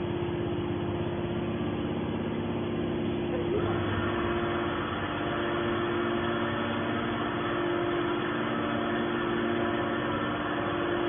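Hydraulic metal baler running with a steady machine hum; a higher-pitched whine joins in about three and a half seconds in.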